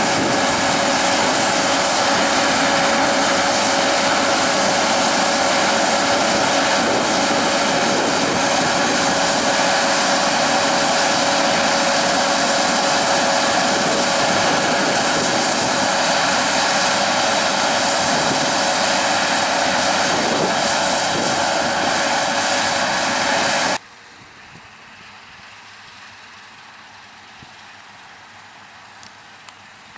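Heavy farm harvest machinery running loud and steady at close range, with a constant whine over its drone. About 24 seconds in it cuts off abruptly to a much quieter, distant hum.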